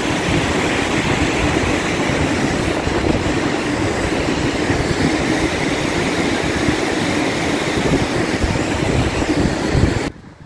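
Steady, loud rushing roar of a mud-laden flooded river, with wind buffeting the microphone. It cuts off abruptly near the end.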